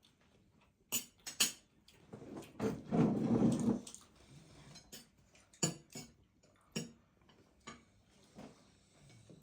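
Kitchen dishes and utensils clinking and knocking a few times, with a louder noisy stretch of about a second in the middle.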